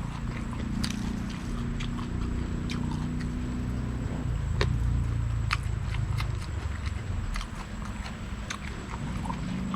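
Someone chewing food close to the microphone, with many sharp, crunchy clicks scattered irregularly over a steady low rumble.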